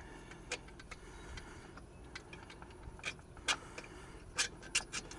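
Hand tools clicking and clinking on metal while the water pump's long 15 mm bolts are worked loose: a handful of irregular sharp clicks, the loudest coming in a cluster in the second half.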